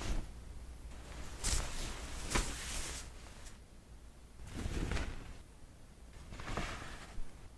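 Clothes being picked up and handled: soft fabric rustles in several swells, with a few light clicks or taps among them.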